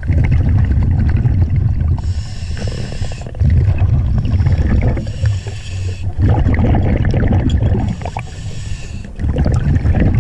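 Scuba diver breathing through a regulator underwater: three hissing inhales, each followed by the long bubbling rumble of exhaled air.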